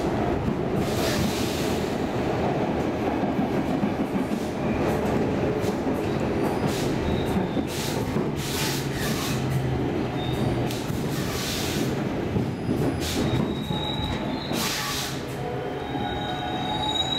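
Stockholm Metro C14 car riding on the rails with its traction motors disabled: a steady rumble of wheels and running gear heard from inside the car, broken by several short bursts of high hiss. Near the end a thin squeal sets in as the car comes into a station.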